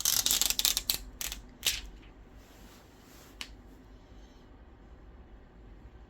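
A burst of small, sharp clicks and crackle for about a second, then a few single clicks: handling of the phone and small repair tools.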